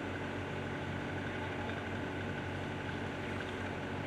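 Heavy construction machinery at a bridge demolition, its engine running steadily as a low, even drone with a faint steady whine above it and no impacts.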